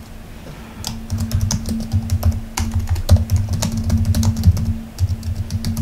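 Typing on a computer keyboard: a quick run of keystrokes that starts about a second in and keeps going almost to the end.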